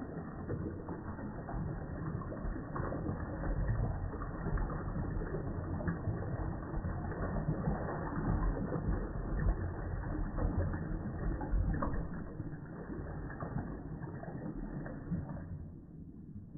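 Toilet flush slowed down: a deep, churning rush of water with irregular small clicks that fades away near the end.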